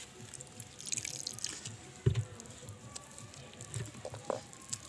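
Fish roe being mashed by hand into a wet gram-flour batter: irregular wet squelching and clicking, with one louder thump about two seconds in.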